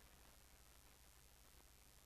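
Near silence: a steady faint hiss with a low hum underneath.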